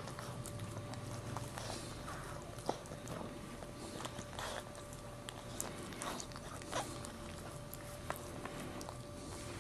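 Maltese mother dog licking and chewing at her newborn puppy and its birth membranes, making irregular wet smacks and clicks.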